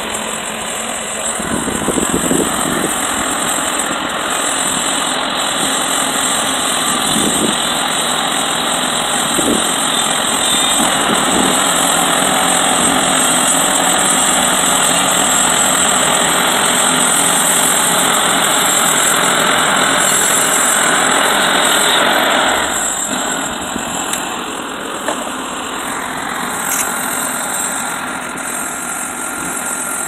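The engine of a Mr. Sawmill Model 30 portable band sawmill runs steadily as its band blade saws lengthwise through a log. About 22 seconds in, the sound drops and lightens while the engine keeps running.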